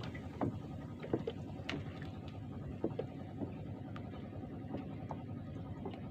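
Steady low rumble of water and wind around a small wooden fishing boat, with scattered light knocks and taps as a handline is pulled in.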